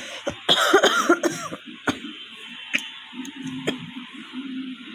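A woman coughing: a short fit of coughs starting about half a second in and lasting about a second, followed by a few faint clicks. The coughs come from a real cough with fever.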